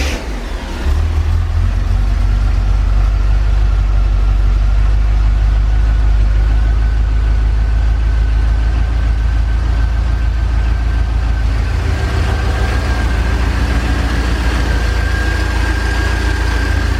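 1984 Corvette's 5.7-litre V8 running just after start-up, steady at idle. A thin high whine comes in faintly and grows clearer over the second half.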